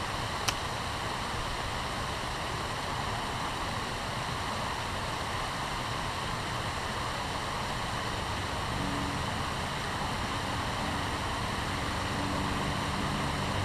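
River water rushing steadily, with a single sharp click about half a second in. From about nine seconds a low, steady motor hum joins in.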